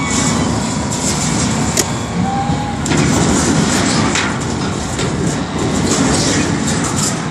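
Wheel loader's diesel engine running while it pushes wrecked sheet metal and timber, with a few sharp clanks and crashes of debris over the steady rumble.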